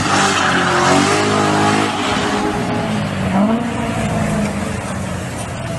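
Car engine revving hard through a burnout, its rear tyres spinning on the pavement. The revs fall off about two seconds in, then rise briefly again a little past the middle.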